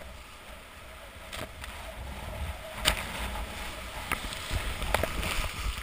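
Whitewater rushing around a kayak as it runs a rapid, with several sudden splashes as water breaks over the bow, the loudest about three seconds in.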